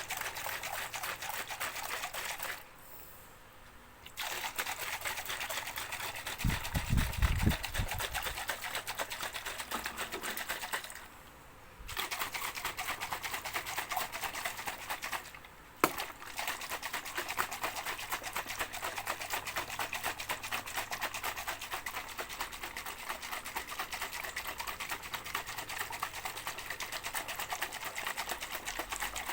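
A shaker holding water, shaken continuously in a fast, dense rattle that stops briefly three times. A low bump, the loudest moment, comes about seven seconds in, and a sharp click comes near sixteen seconds.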